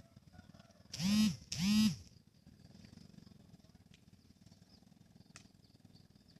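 An animal calling twice in quick succession, about a second in; each call is short and loud with a pitch that rises and falls.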